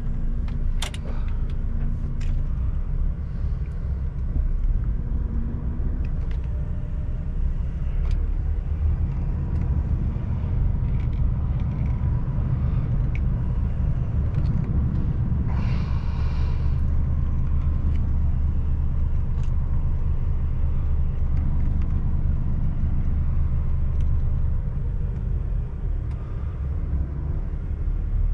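Lorry's diesel engine running as the truck moves slowly, a steady low rumble that grows heavier partway through and eases near the end. A few clicks come near the start, and a short hiss comes about halfway through.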